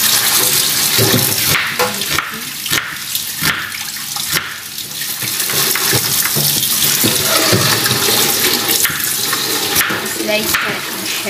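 Kitchen knife chopping a red onion on a bamboo cutting board, irregular sharp taps of the blade on the wood. Under it runs a loud steady rushing hiss.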